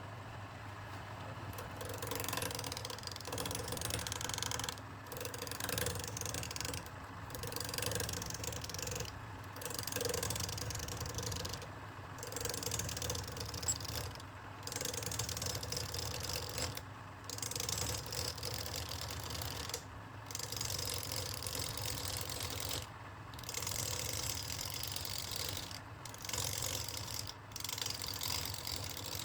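Wood lathe running steadily while a turning tool cuts the spinning wood. The cutting noise breaks off briefly every two to three seconds as the tool lifts, and the motor hum carries on underneath.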